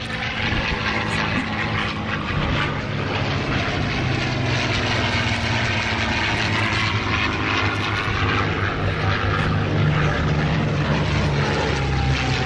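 P-51 Mustang's propeller-driven piston engine running in a low fly-by, a steady drone that grows somewhat louder toward the end.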